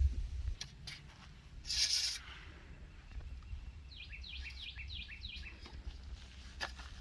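A small songbird sings a quick run of about eight short notes, each sliding downward, beginning about four seconds in. Near two seconds there is a brief hissing rustle or scrape.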